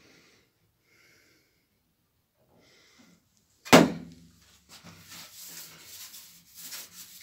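A homemade slide hammer on a spot-welder dent puller strikes its stop once, a single sharp metal clunk with a short ring about four seconds in, pulling the warped weld seam on a car door's sheet metal outward. It is followed by a steady rough rubbing as a hand slides over the painted panel.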